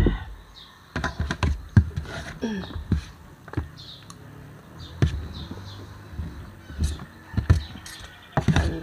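Spoon and fork clicking and scraping against an aluminium foil tray while scooping rice, with close-up chewing and mouth sounds between: a string of short irregular taps, a sharp one at the very start.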